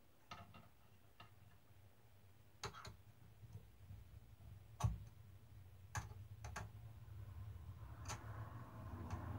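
Faint, scattered small clicks and taps of metal side plates and their screws being handled and fastened onto a replica championship title belt's strap, the loudest about halfway through, over a low steady hum. A soft rustle comes in near the end.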